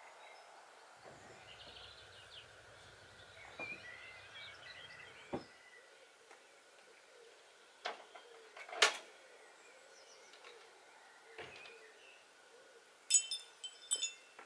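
Garden ambience with birds chirping, broken by several sharp wooden knocks, the loudest about 9 s in. About 13 s in, chimes start tinkling with bright ringing clinks.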